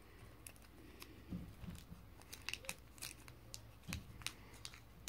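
Faint crinkling and a scatter of short, uneven clicks from a small plastic bag of powder being handled.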